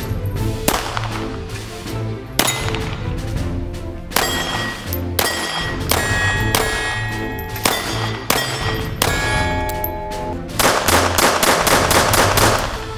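FN 1910/22 pistol shots, each followed by the ringing clang of a struck steel target, over background music with a steady bass line; near the end comes a fast run of strikes.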